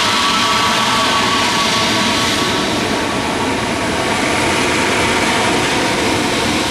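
Pratt & Whitney PW1100G geared turbofans of an Airbus A320neo running loud and steady during landing, a rushing noise with a whine that fades over the first couple of seconds.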